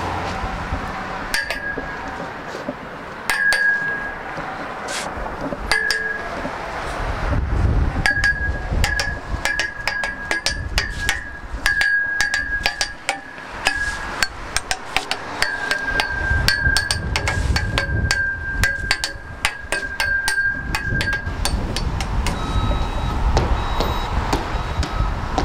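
Hammer blows on metal at a construction site, each strike ringing at the same pitch, coming in irregular runs that turn rapid in the middle stretch, over a low traffic rumble. Near the end a truck's reversing beeper starts its steady beeping.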